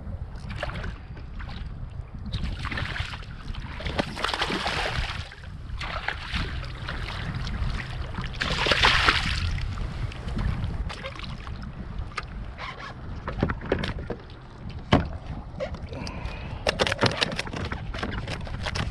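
Wind rumbling on the microphone of a fishing kayak on the water. Two louder rushes of hissing noise come about three and nine seconds in, and a run of sharp knocks and clicks follows near the end.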